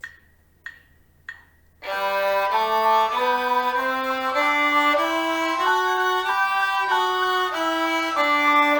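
Three even clicks, then a viola bowing a one-octave G major scale from the open G string upward, one sustained note about every 0.6 s. It reaches the top G and starts back down near the end.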